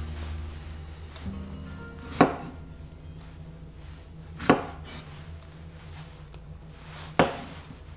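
Kitchen knife cutting through strawberries and knocking on a wooden cutting board: three sharp knocks a couple of seconds apart, with a lighter click between the last two. Soft background music plays underneath.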